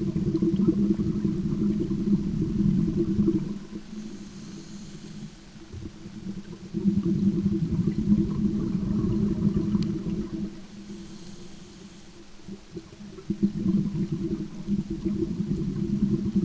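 Scuba diver's own breathing heard underwater: three long bursts of low bubbling as exhaled air leaves the regulator, each lasting a few seconds, with quieter breaths in between.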